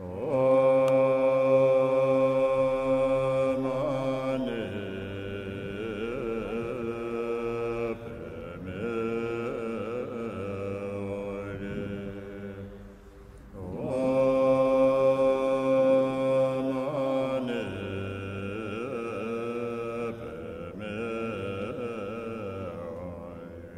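A voice chanting a mantra in a repeating phrase: a long held note, then a wavering melodic line, with the phrase starting again about fourteen seconds in.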